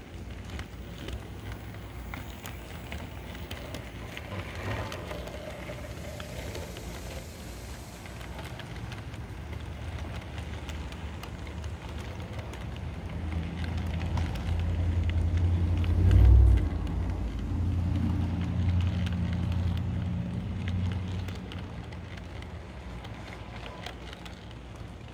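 A DCC model freight train with a non-sound locomotive rolling past on the layout's track: a low rumble of metal wheels on rail with small clicks over the rail joints and turnouts. The rumble builds to its loudest, with a thump, about two-thirds of the way through, then eases off near the end.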